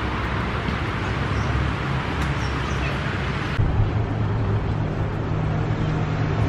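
City traffic noise, a steady hum of road traffic. A little over halfway through it switches abruptly to a busier street scene with cars going by close at hand.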